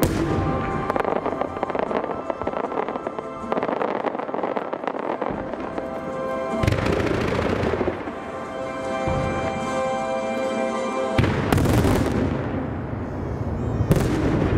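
Japanese aerial firework shells bursting in a rapid run of sharp reports over music. The heaviest volleys come about eleven seconds in and just before the end.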